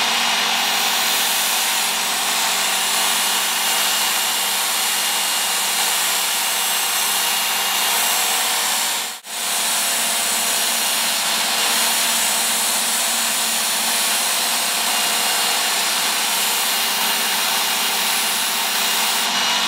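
Work Sharp Ken Onion Edition electric belt sharpener running steadily, its motor humming under the hiss of a knife's steel blade being drawn along the fine-grit belt to finish a convex edge. The sound drops out for a moment about nine seconds in.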